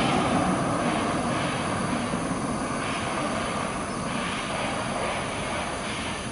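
Antonov An-124's four turbofan engines running at power as the jet rolls away, a steady jet roar that slowly fades.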